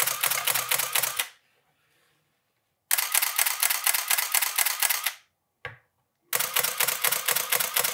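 Canon T90 SLR firing in high-speed continuous drive: three bursts of rapid shutter clicks, each carried by the camera's built-in winder motor and lasting one to two seconds.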